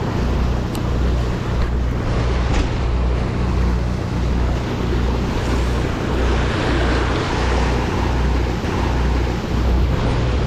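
Fishing boat's engine running with a steady low drone, pulsing evenly, over the rush of water from the wake along the hull.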